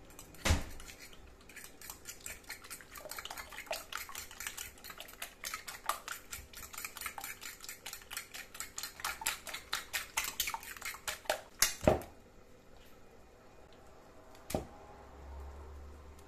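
A metal fork beating a runny egg and cream batter in a bowl: fast, irregular clicks of the fork against the bowl's sides, ending with two sharp knocks about twelve seconds in. A soft rustle follows near the end as grated courgette is tipped into the batter.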